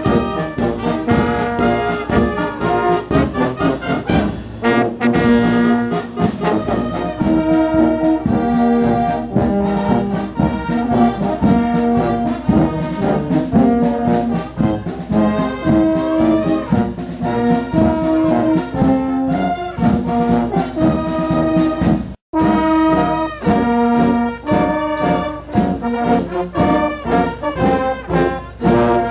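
Brass band playing: trumpets, trombones, tubas and saxophone carry held melody notes over a steady bass-drum beat. The music drops out for a split second about three quarters of the way through, then carries on.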